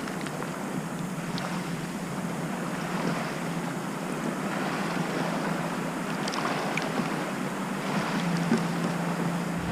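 Boat motor humming steadily, with wind and water noise over it.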